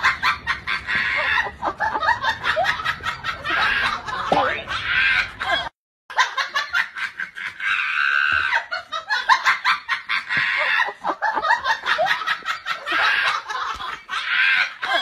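Shrill, cackling laughter in rapid bursts, close to a hen's clucking. It breaks off completely for a moment about six seconds in, then starts again.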